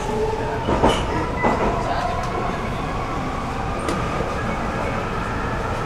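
Stockholm metro train running through the tunnel, heard from inside the car: a steady rumble with a whine that slowly rises in pitch. Two sharp knocks come about a second in.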